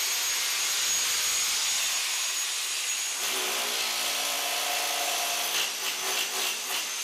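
Small electric rotary hammer (perforator) running with a steady high motor whine. About three seconds in a lower, rougher note joins as it works into the masonry wall, with a few irregular knocks near the end.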